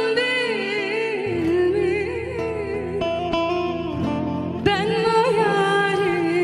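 A woman singing a Turkish folk song with wavering, ornamented pitch, accompanied by a plucked bağlama (long-necked saz) that strikes a sharp note about four and a half seconds in.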